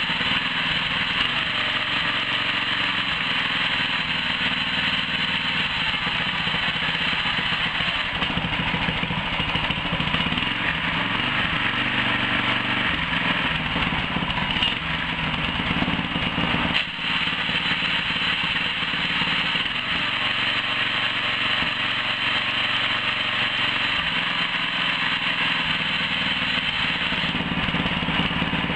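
Homemade outboard motor's air-cooled four-stroke vertical-shaft Briggs & Stratton engine running steadily.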